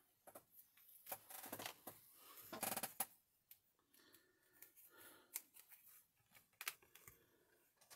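Quiet handling of a clear acrylic stamp over an ink pad: faint plastic rustling and a few light clicks and taps, with one brief louder rustle about two and a half seconds in.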